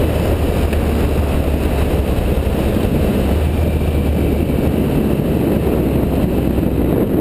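Triumph Speed Triple 1050's inline three-cylinder engine running steadily at a cruise, heard from the rider's seat with wind buffeting the microphone.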